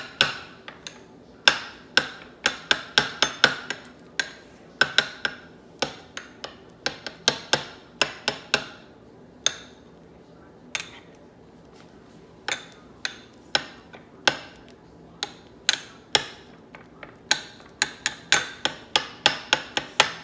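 Metal spoon knocking repeatedly against a bowl while mashing banana slices into whipped topping: irregular short clinks, often several a second, with a lull of a couple of seconds around the middle.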